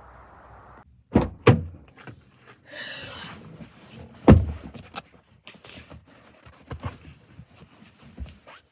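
Several heavy thuds: two close together about a second in and the loudest a few seconds later, with a short rush of noise between them and lighter knocks after.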